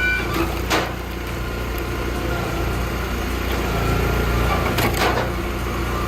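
Hydraulic log splitter's engine running steadily while logs are split, with two sharp cracks of wood splitting apart, about a second in and again about five seconds in.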